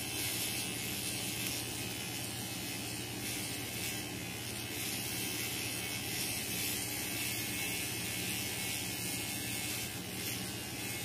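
Battery-powered pen-style facial hair trimmer switched on and held against the skin of the upper lip, giving a steady electric buzz.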